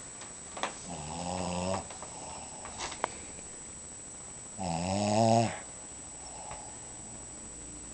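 Shih Tzu dog snoring in its sleep: two drawn-out, pitched snores, one about a second in and one near the middle, roughly four seconds apart.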